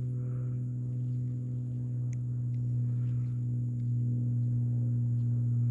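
A steady low-pitched hum with a few overtones, like a motor or pump running, getting slightly louder about halfway through, with a few faint clicks over it.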